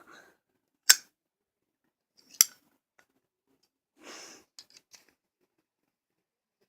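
Lighters being handled: two sharp clicks about a second and a half apart, then a short rasp followed by a few faint ticks.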